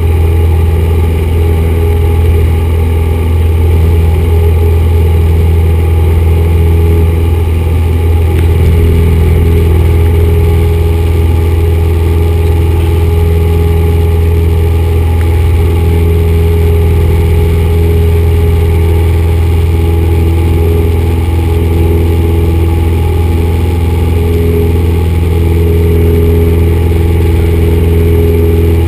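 1974 Cessna 172's four-cylinder Lycoming O-320 engine and propeller droning steadily in flight, heard from inside the cabin. The sound is a constant low drone with no change in power.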